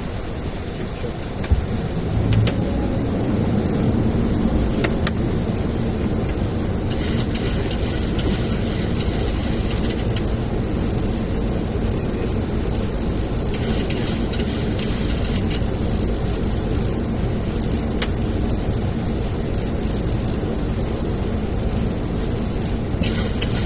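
Steady cockpit noise of a Boeing 737-800 on approach: airflow and engine noise, with a few faint clicks.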